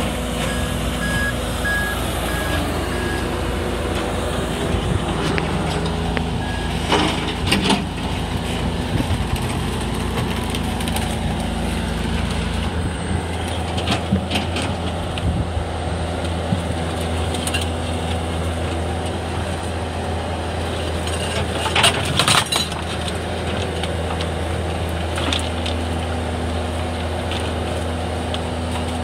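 Bobcat skid-steer loader's diesel engine running steadily alongside a garbage truck's engine. A reversing alarm beeps briefly near the start. The bucket scoops and crushes bulk rubbish, giving a few crunching knocks about a quarter of the way in and a louder cluster about three-quarters of the way through.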